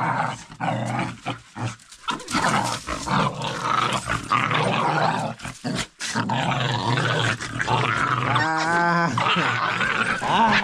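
Two young dogs play-fighting, growling and snarling at each other. About eight seconds in, one gives a short high whine whose pitch steps upward.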